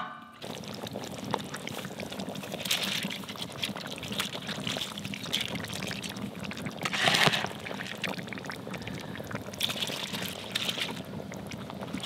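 Water pouring and trickling into a kazan of plov over freshly added rice, in several louder spells with the strongest about seven seconds in.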